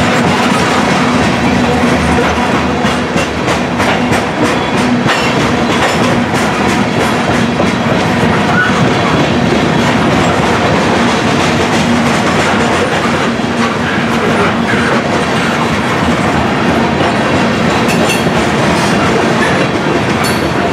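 Covered hopper cars of a Norfolk Southern freight grain train rolling past close by: a steady, loud rumble of steel wheels on rail, with spells of clickety-clack from the wheels a few seconds in and again near the end.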